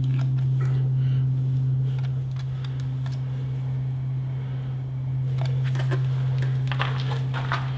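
Steady low hum, with scattered light clicks and taps of gloved hands handling the fuel hose fittings on an outboard engine, mostly in the second half.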